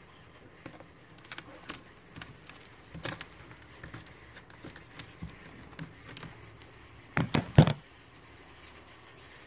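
Scattered small scratches and clicks of a water monitor lizard's claws moving over soil substrate and the enclosure's plastic wall, then a short burst of loud knocks and rustling about seven seconds in.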